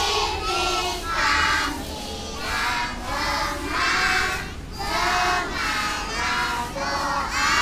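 A large group of young children singing together in loud phrases of about a second each, with short breaks between.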